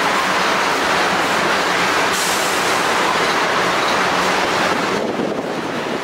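A train passing close by, its wheels rolling on the rails in a loud, steady noise, with a brief hiss about two seconds in. About five seconds in the sound dulls and drops a little.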